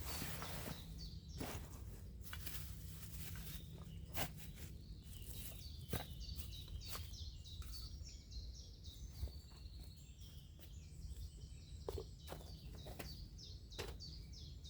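Woodland ambience: small birds singing in short high chirps, clearest in the second half, over a low steady rumble. Scattered knocks and rustles of someone moving about break in now and then.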